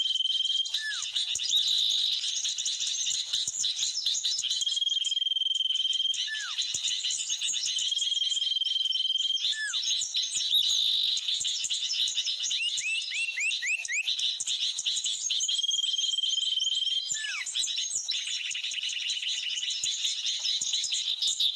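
Bird calls over a steady chorus of insects: a long level whistle ending in a short downward slur, repeated four times, with a quick run of about six falling notes about halfway through.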